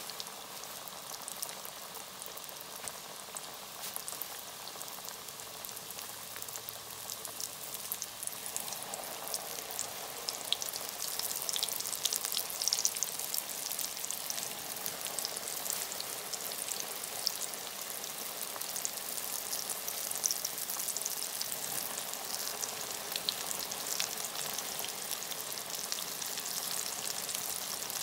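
Breaded chicken tenders deep-frying in a pan of hot oil: a steady sizzle with crackling pops. It grows louder about ten seconds in as more pieces are dropped into the oil.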